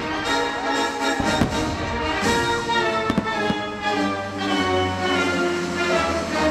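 Orchestral show music with sustained brass-like chords, loud over the park's speakers. Fireworks shells burst with several sharp bangs over the music.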